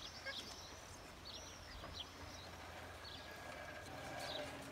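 Faint birds chirping in short, repeated high calls over a low steady hum; a low steady tone joins near the end.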